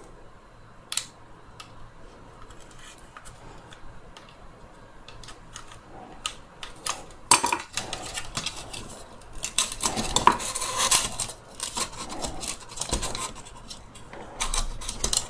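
Hard plastic parts of a Dyson V10 handle clicking, scraping and rattling as a plastic piece is worked loose by hand. The clicks are sparse at first and come thicker and louder in the second half.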